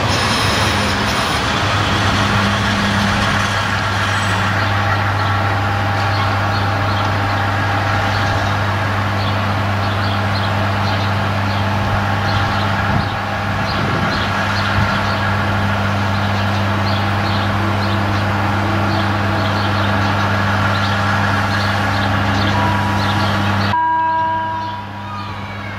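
Zillertalbahn narrow-gauge diesel railcar idling at the platform, a steady deep engine hum. Near the end the engine noise drops away and a ringing level-crossing warning bell comes in.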